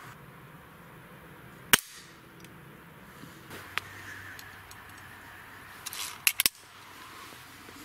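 A Weihrauch HW45 spring-piston air pistol is fired: one sharp crack a little under two seconds in, then a few faint clicks. A second quick cluster of sharp cracks comes a little after six seconds.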